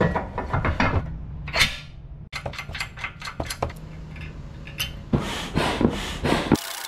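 Metal clanks and clicks of a rusty steel tow-hitch ball mount being slid into a car's receiver and pinned with a hitch pin and clip, with a quicker run of knocks near the end.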